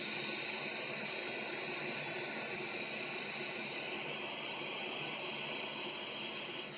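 Hot air gun blowing a steady hiss of hot air onto a laptop's GPU to heat it, cutting off near the end.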